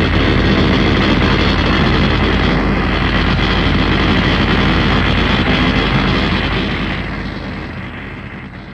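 Giant-robot sound effect: a loud, steady mechanical rumble with hiss, like a jet or engine, that fades away over the last two seconds or so.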